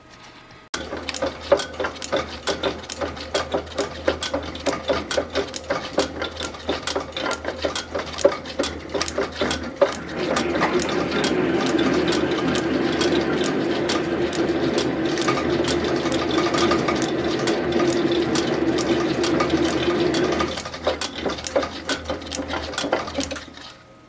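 South Bend 9 Junior metal lathe starting about a second in and running with a low motor hum and many rapid ticks. From about ten seconds in a louder, steadier grinding comes in as the knurling tool presses into the spinning steel end piece. It eases off after about twenty seconds, and the lathe is switched off just before the end.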